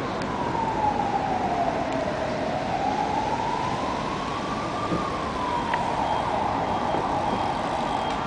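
An emergency-vehicle siren wailing in a slow sweep: it falls in pitch, rises, then falls again. Under it runs steady street traffic noise.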